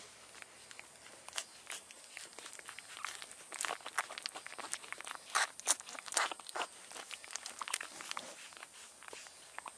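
Eight-day-old French Bulldog puppies suckling at their mother's teats: an irregular run of quick clicking and smacking sounds, busiest and loudest in the middle.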